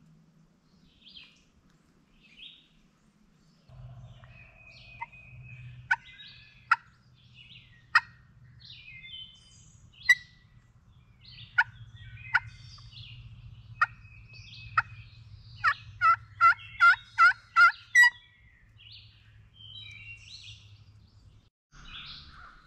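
Wild turkey calling: loud single clucks spaced every second or so, then a quick run of about seven yelps near the end. Small songbirds chirp faintly in the background.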